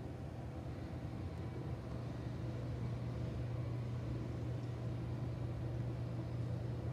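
Steady low mechanical hum of kitchen machinery running, with no other events.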